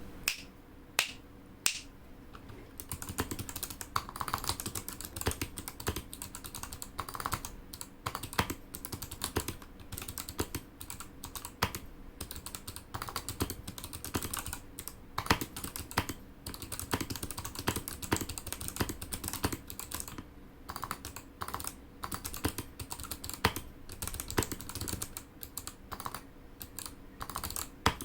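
Typing on an XD68 mechanical keyboard with Kailh Box White clicky switches, its case padded with cotton wool: a few separate key presses, then steady fast typing from about two seconds in.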